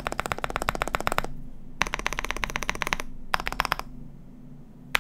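Typing on a Wuque Studio Promise87 mechanical keyboard with factory-lubed WS Aurora Clear switches, PC plate, PORON foams and PBT keycaps: rapid keystrokes in three quick bursts with short pauses between, a sound described as bubbly.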